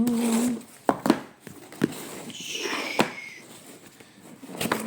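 Cutting open a cardboard shipping package by hand: scattered sharp clicks and scraping, with a short falling squeak around the middle.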